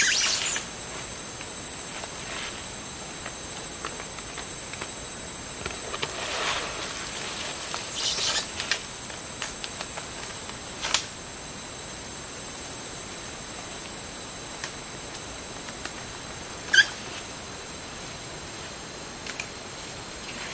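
Steady high-pitched insect drone in forest. A few short crinkles and rustles of plastic wrap being smoothed and stretched by hand break in now and then.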